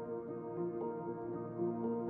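Soft ambient background music: sustained notes that change every second or so.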